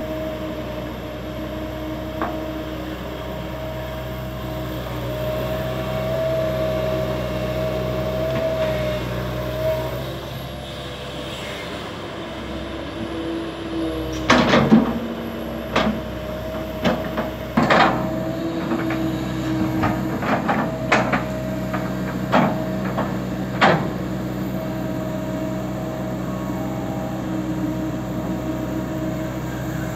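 Komatsu PC200 LC excavator's diesel engine running under hydraulic load, its note rising and falling as the arm and bucket work. Between about 14 and 24 seconds in, a series of sharp knocks and clanks comes from the bucket digging into the pit.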